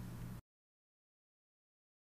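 Near silence: a faint steady low hum cuts off abruptly about half a second in, leaving complete digital silence as the audio track ends.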